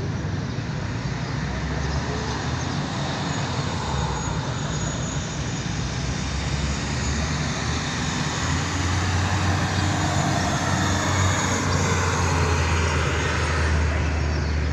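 Street traffic noise. A vehicle engine running close by makes a low steady hum that comes in louder about halfway through.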